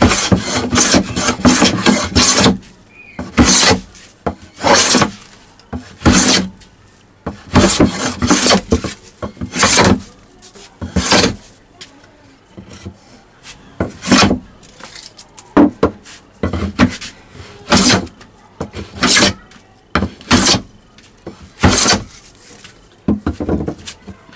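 Wooden hand plane shaving a wooden board in repeated push strokes, roughly one a second, with a quick run of strokes near the start. Each stroke is a short scraping hiss of the blade lifting a shaving, as a rough, uneven board is planed flat and smooth.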